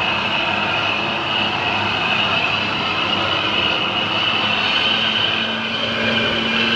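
Steady road noise of a vehicle under way, with a constant low hum and a steady higher whine that hold without a break.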